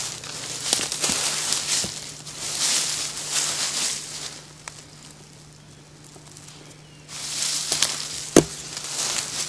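Footsteps crunching through dry leaves and brush, going quiet for a few seconds in the middle, with a sharp knock near the end.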